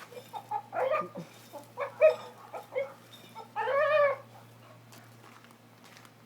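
Boxer dog vocalising: a string of short pitched noises, then one longer wavering call about three and a half seconds in.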